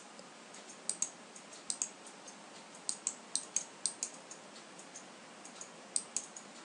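Computer mouse button clicking, a dozen or so sharp clicks, many in quick pairs, spread irregularly over a faint steady hiss.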